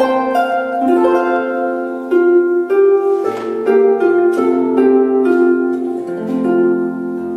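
Lever harp played solo: plucked notes and chords ringing over one another, the run slowing until a final chord is struck about six seconds in and left to ring out as the piece closes.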